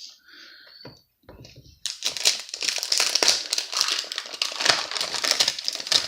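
Paper or plastic packaging crinkling loudly as it is handled and torn, starting about two seconds in after a few faint rustles.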